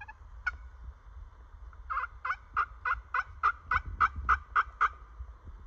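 Turkey call sounding hen yelps: one yelp, then a steady run of about eleven evenly spaced yelps at roughly three a second.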